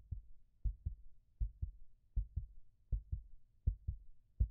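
Steady heartbeat: paired low thumps in a lub-dub rhythm, about eighty beats a minute.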